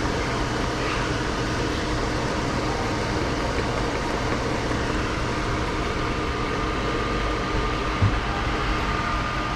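Instant-ramen cooker running while the noodles cook on a countdown: a steady hum and hiss with a constant whine, and one short low knock about eight seconds in.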